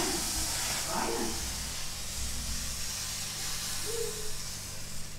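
Appam batter sizzling in a hot appam pan, a steady high hiss that cuts off sharply near the end.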